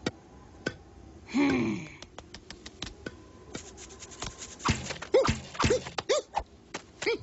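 Cartoon sound effects: a run of sharp clicks and taps, a tone gliding downward about a second and a half in, and a cluster of short rising-and-falling tones a little after five seconds, with one more near the end.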